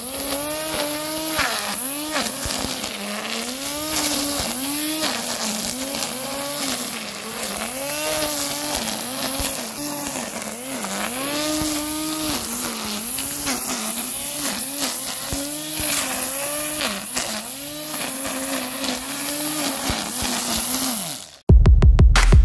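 Parkside PRT 550 A3 550-watt electric grass trimmer running while cutting grass with its twin nylon line, the motor's whine dipping in pitch and recovering over and over, about once a second. About a second before the end it stops and loud electronic music with a heavy beat takes over.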